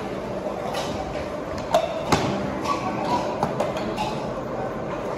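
Steady background din of a working jaggery-making shed with a faint hum, broken by two sharp knocks about two seconds in and a few lighter taps after them.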